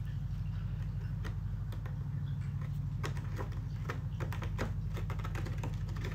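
A cat's claws scratching a corrugated cardboard scratcher pad in quick, irregular strokes that come thicker from about halfway in, over a steady low hum.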